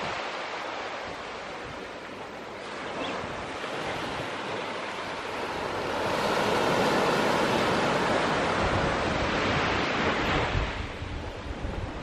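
Small waves breaking and washing up a sand beach, with one louder wash swelling about six seconds in. Gusts of wind buffet the microphone near the end.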